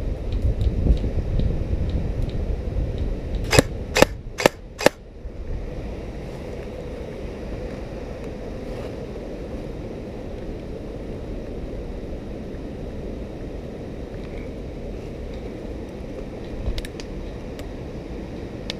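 Four sharp airsoft gun shots in quick succession, about two or three a second, some four seconds in. Before them comes a low rumbling of wind or movement on the microphone, and after them a steady background hiss.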